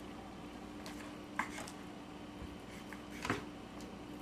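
Kitchen knife cutting raw beef steak on a wooden cutting board, the blade knocking sharply against the board twice, about a second and a half in and again near the end, over a faint steady hum.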